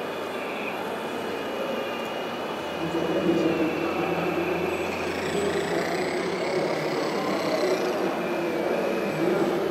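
Hydraulic pump of an RC Liebherr 946 model excavator whining as it drives the boom and bucket, its pitch shifting with the load, getting louder about three seconds in. Crowd chatter underneath.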